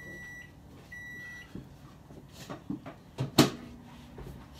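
Microwave oven beeping twice, about a second apart: the end-of-cycle signal after melting butter. Several clicks and knocks follow, the loudest about three and a half seconds in.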